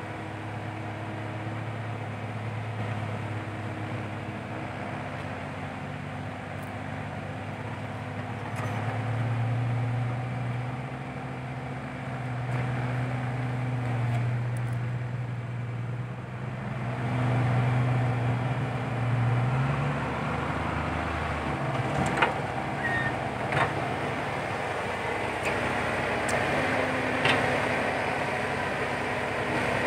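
Komatsu PC120-5 hydraulic excavator's diesel engine running under changing load while it digs and swings, its pitch rising and dropping several times. Several sharp clanks come in the last third.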